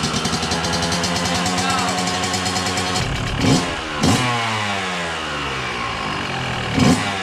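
Yamaha YZ125 two-stroke dirt bike engine, stock exhaust with no turbo whistle fitted, idling while warming up. About halfway through it is blipped twice in quick succession, the pitch shooting up and dropping back, and once more near the end.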